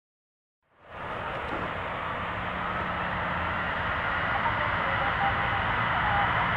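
Boeing 737-800's CFM56-7B turbofan engines running, heard from a distance as a steady rushing noise with a faint whine in it. It fades in under a second in and slowly grows louder.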